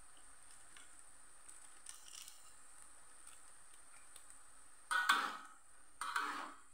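A metal spatula scraping and stirring long beans and tempeh in an aluminium wok. Two sharp scrapes about five and six seconds in, after a few seconds of faint hiss.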